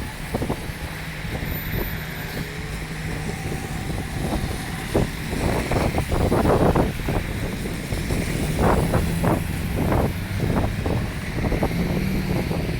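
City traffic running past at a snowy intersection, with engines humming, and wind buffeting the microphone.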